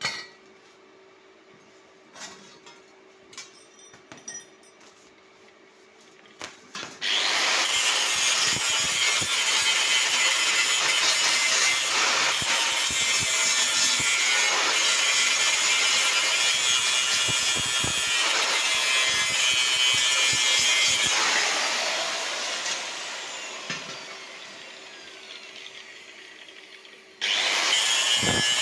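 A few light clicks and knocks, then about seven seconds in a power tool starts working metal with a loud, harsh grinding noise. It eases off and fades over several seconds, then starts again loudly near the end.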